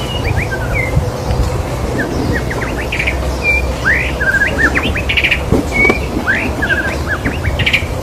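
White-rumped shama singing: a varied run of short clear whistles, slurred notes and quick trills, over a steady low hum.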